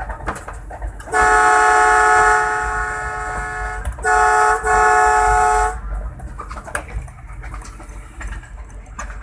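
ZCU-20 diesel locomotive's multi-tone horn sounding: one long blast that eases off partway, then two short blasts in quick succession, over the low rumble of the running locomotive.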